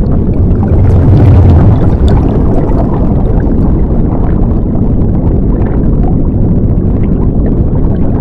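Loud, steady rumbling noise, heaviest in the low end, swelling a little about a second in.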